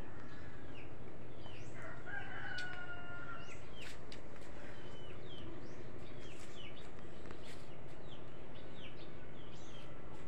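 A rooster crowing once, a held call beginning about two seconds in and lasting about a second and a half, with small birds chirping throughout.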